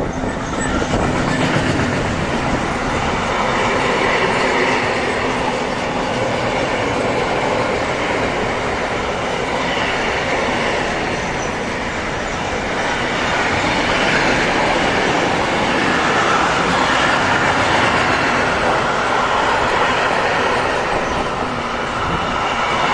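Freight train of covered sliding-wall goods wagons rolling steadily past on steel rails, the wheels making a continuous rumbling, rattling noise.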